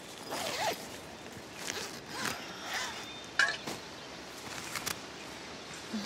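Tent door zipper being pulled open in several short strokes, with nylon tent fabric rustling.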